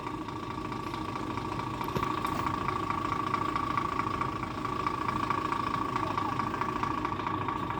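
Gravel truck's diesel engine idling steadily, with a constant high tone held over the even running.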